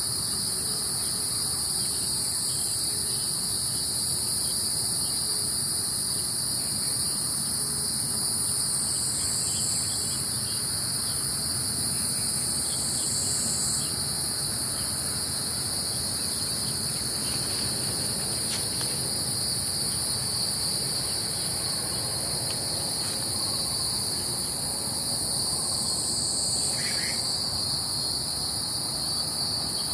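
Steady, high-pitched chorus of singing insects, running without a break. A short, fainter call rises through it near the end.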